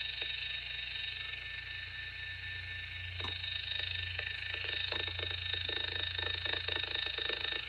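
A TIDradio TD-H3 Plus handheld radio and its Bluetooth speaker unit give a steady static hiss with a high whine. About three seconds in, a low hum and rapid crackling clicks join it: the radio is interfering with itself.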